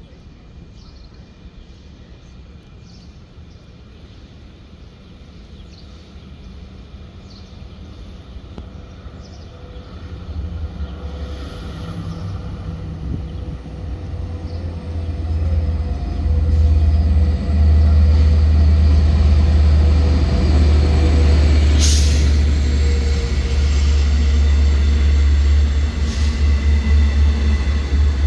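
EMD DE30AC diesel-electric locomotive and its train approaching and passing: a deep engine and wheel rumble grows from faint to loud over about fifteen seconds, then stays loud. A brief sharp noise cuts through it about two-thirds of the way in, and the sound ends in an even pulsing as the cars roll by.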